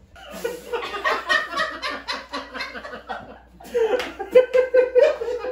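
Men laughing in rapid pulses. The laughter stops briefly about three seconds in, then comes back louder.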